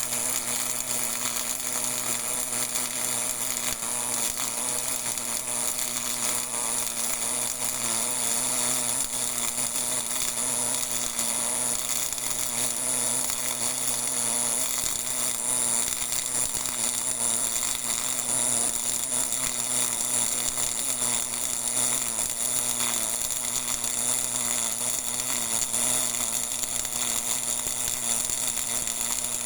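MIG (GMAW) welding arc buzzing and crackling steadily as a continuous bead is laid, without a break.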